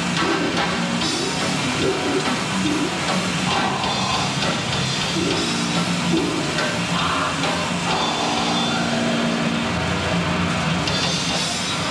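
Black/death metal band playing live: distorted electric guitar and drum kit in a dense, steady wall of sound.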